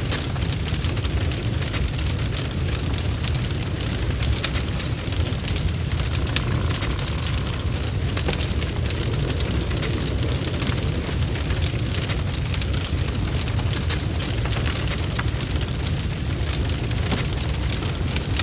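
Wood fire burning with dense, irregular crackling and popping over a steady low rumble.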